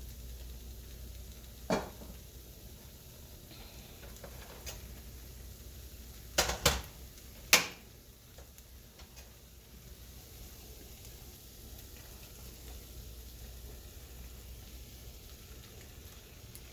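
Food sizzling in a pan on the stove, with sharp clinks of a cooking utensil against the pot: one about two seconds in and three in quick succession near the middle, the last the loudest.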